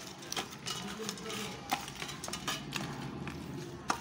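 A hand mixing raw chicken pieces with spices in a steel bowl, with irregular clicks and knocks as the bowl shifts about on the floor.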